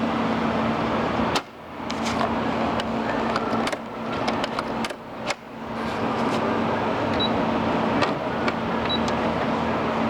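Electric sewing machine running steadily on its motor. It cuts out briefly twice, about a second and a half in and again about five seconds in, and builds back up to speed each time.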